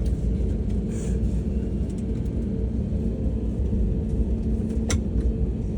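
Cabin noise of an Airbus A321LR neo just after landing: a steady low rumble with a constant hum from the aircraft. There is a single sharp click a little before the end.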